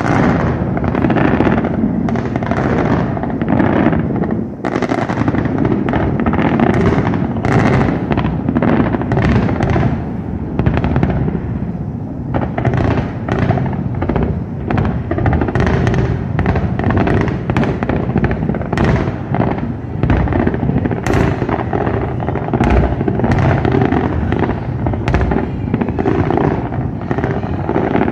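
Fireworks display: a dense, unbroken barrage of bangs and crackles over a steady low rumble.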